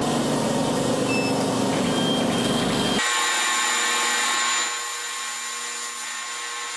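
CO2 laser engraving machine running through an engraving job: steady fan and air noise with a whine from the machine. About three seconds in the sound changes abruptly, losing its low rumble and turning to a brighter hiss with steady whining tones, and it drops a little in level after about four and a half seconds.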